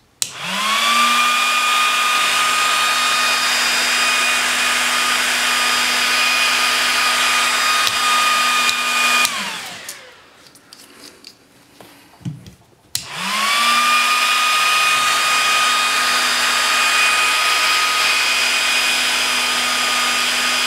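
Small electric cooling fan of a diode laser module switching on and running with a steady whine while the laser is fired in focus mode. It spins up just after the start, winds down with a falling pitch about nine seconds in, then spins up again about 13 seconds in.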